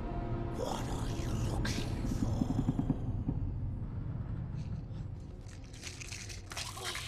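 A boy's frightened breathing over a low rumbling drone, with a sharp breath about half a second in and another near the end, and faint rustling and clicking as he rummages in his waist pack for an inhaler.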